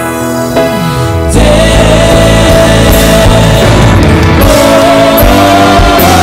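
Live gospel band of keyboards, bass guitar and drums with a lead singer. It opens quieter with a bass note sliding down in pitch, then a little over a second in the full band comes in louder with drums and cymbals, under long held sung notes.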